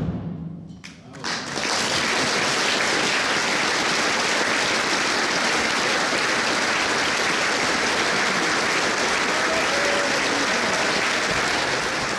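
Large seated audience applauding steadily. The band's last chord dies away at the start, and the clapping begins about a second and a half in.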